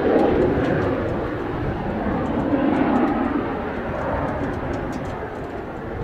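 Kawasaki T-4 trainer's twin turbofan jet engines at take-off power as the jet lifts off and climbs away, easing a little toward the end. Strong wind buffets the microphone throughout, a gusty low rumble under the jet noise.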